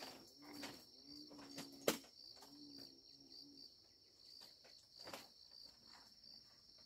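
Insects chirping steadily in a high, pulsing trill, with soft knocks from footsteps on a bamboo floor and one sharp knock a little under two seconds in, the loudest sound.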